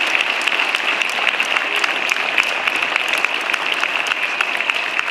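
A crowd applauding, many hands clapping at once, easing off slightly near the end.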